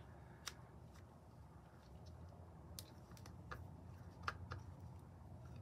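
Faint, scattered clicks and taps of a plastic fashion doll and her stand being handled, about five in all, over a faint low rumble.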